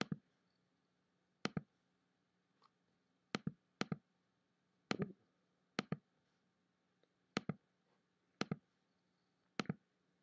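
Computer mouse clicking: single sharp clicks roughly every one to one and a half seconds, over a faint room hum.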